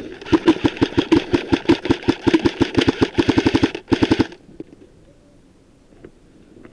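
Airsoft electric rifle firing on full auto: one long burst of rapid, evenly spaced shots lasting nearly four seconds, then a short second burst, then it stops.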